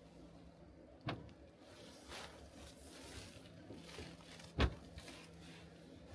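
Two short knocks, about three and a half seconds apart, the second louder, over faint rustling handling noise.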